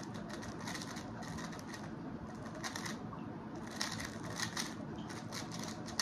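X-Man Tornado V3 M magnetic 3x3 speedcube being turned at speed in a solve: rapid, irregular flurries of plastic clicks and clacks as the layers snap round.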